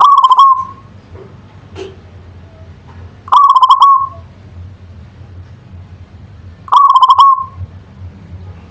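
Zebra dove (perkutut) singing: three short, rapidly pulsed coo phrases, one every three and a half seconds or so, over a faint low hum between calls.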